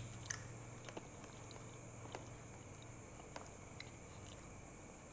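A person eating rice porridge with a spoon from a plastic cup: faint chewing and a few small scattered clicks.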